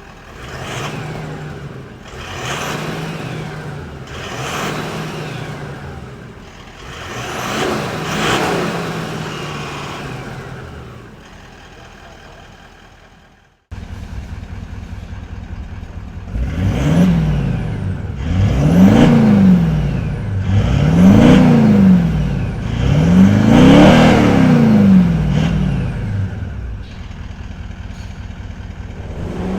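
Toyota Land Cruiser 200 Series V8 turbo-diesel revved at standstill in a before-and-after comparison. First comes four rising-and-falling revs through the stock exhaust. After a sudden cut about halfway, four louder revs with a deeper rumble come through the Legendex 2-into-1 3½-inch stainless aftermarket exhaust.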